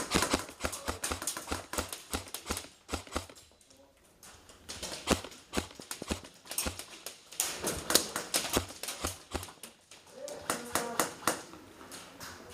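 Fast footsteps of a player running over the ground, a few quick thuds a second, coming in bursts with short pauses between.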